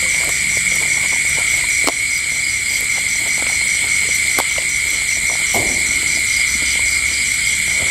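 Night insects, crickets among them, calling steadily: a continuous high trill with a faster pulsing chirp above it, about four pulses a second. A few light clicks from eating at the table come through underneath.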